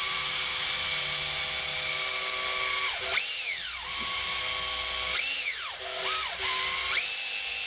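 Makita cordless drill spinning a wooden dowel while sandpaper is held around it to sand it smooth: a steady motor whine over a hiss. In the second half the drill's speed changes several times, its whine sliding up and down in pitch, and it ends back at full speed.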